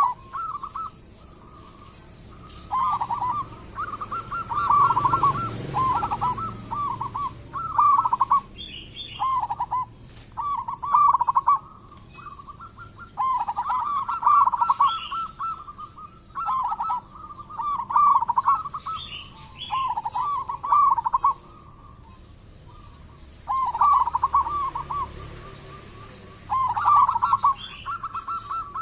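Zebra dove (perkutut) cooing over and over in quavering phrases about a second long, separated by short gaps and a couple of longer pauses. Faint high chirps sound behind it.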